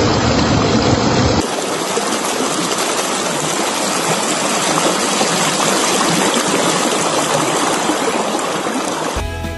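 A steady, even rush of water noise from heavy monsoon rain and runoff, with a deep rumble under it for the first second and a half. Music starts just before the end.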